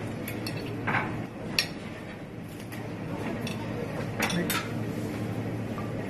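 Metal serving tongs clinking against a ceramic plate a few times as garnish is set down, the sharpest clink about one and a half seconds in, over a steady low background hum.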